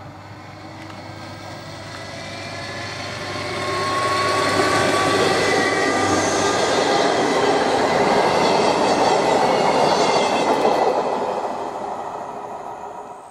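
Electric multiple-unit passenger train passing close by: the rumble of its wheels on the rails and a whine from its motors build for about four seconds, hold as the carriages go by, then die away quickly near the end.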